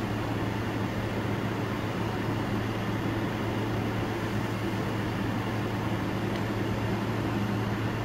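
A steady low electrical hum with a faint hiss, unchanging throughout.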